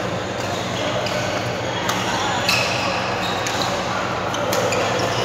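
Doubles badminton play: a few sharp racket hits on a shuttlecock and short squeaks of court shoes on the floor.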